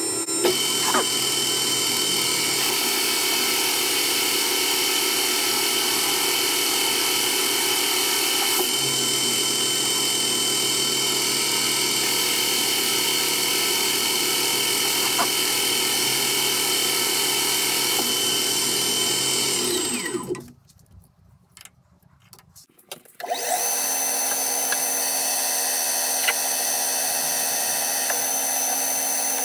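A metal lathe is turning a metal workpiece between the chuck and a live centre, with a carbide insert tool taking a cut: a steady machine hum with a whine of several held tones. The sound cuts out for about three seconds about two-thirds of the way through, then returns with a different pitch of whine.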